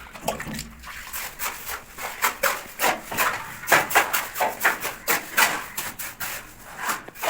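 Rapid, irregular scraping and tapping, several short strokes a second, from hand work on a hard material.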